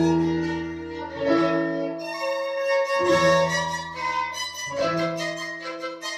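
Violin and grand piano playing a duet: a bowed violin melody over piano chords that change about every second and a half.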